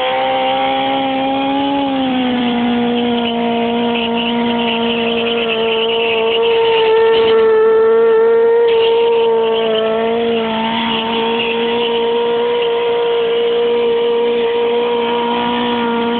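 Honda CBR900RR Fireblade's inline-four engine held at steady high revs through a burnout, its rear tyre spinning and smoking on the asphalt. The pitch sags a little about two seconds in, then holds level, getting somewhat louder around the middle.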